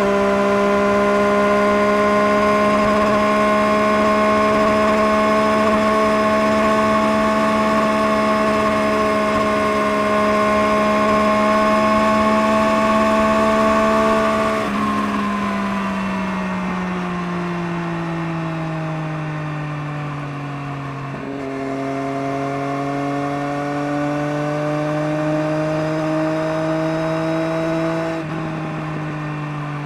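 Engine running through a Scorpion aftermarket exhaust, holding a steady note that climbs slowly in pitch. About halfway the pitch and level fall away. The note steps back up a little after 20 s, then falls again near the end.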